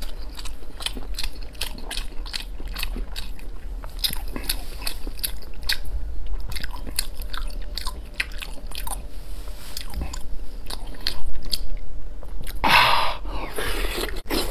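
Close-miked mouth sounds of a man chewing red-braised pork belly: many quick clicks and smacks, then a louder, longer bite into the piece near the end.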